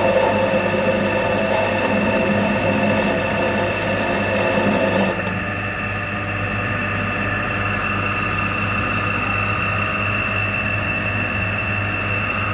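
Milling machine running, drilling and center-drilling bolt holes into the model boiler, with a steady motor hum and whine. About five seconds in, the rougher cutting sound drops away and the machine runs on steadily.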